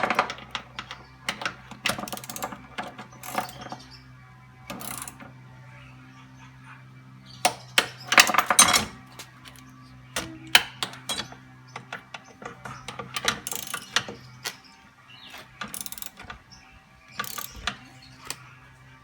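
Ratchet wrench clicking in short runs, in several spells with pauses between, the longest and loudest about eight seconds in: the four nuts holding a jet pump to its studs being tightened and torqued in a cross pattern.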